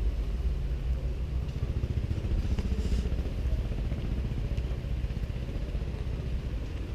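Strong wind buffeting the camera microphone: a steady, heavy low rumble.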